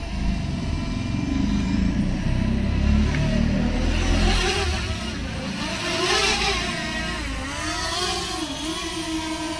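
DJI Mini 2 SE drone's propellers whining as it hovers and descends close by, the pitch wavering up and down as it moves. A low rumble sits under it in the first half and fades about halfway through.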